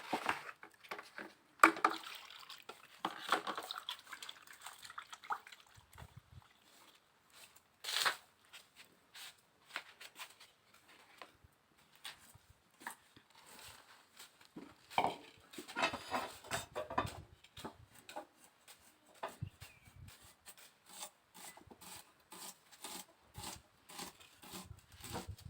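Scattered light clicks and taps from hand work preparing vegetables and spices, with louder knocks about 2 s and 8 s in.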